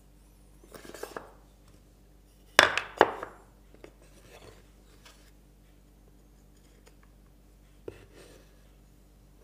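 Wooden brace pieces knocking and clattering against a timber frame as they are handled and set in place, with two sharp knocks about two and a half seconds in, half a second apart, and a few lighter taps and a click later.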